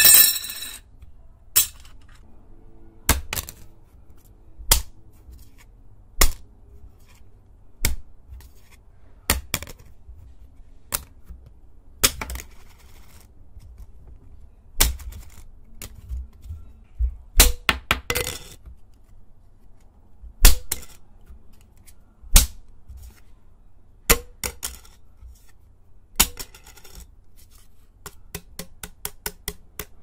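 Tazos, collectible plastic discs, dropped one at a time onto a wooden desk, each landing with a sharp clack about every second and a half. Near the end comes a quicker run of lighter clicks.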